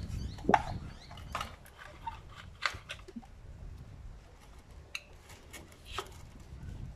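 Thin plastic drink bottle and plastic bottle-cap wheels being handled and pushed onto wooden skewer axles: a scattered series of light clicks, taps and crinkles of plastic.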